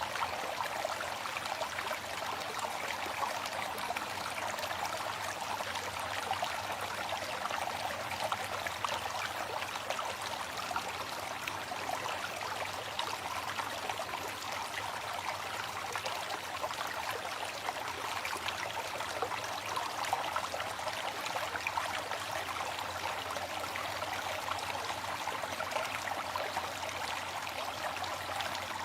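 Small waterfall splashing in a steady, even rush of water, with little deep rumble.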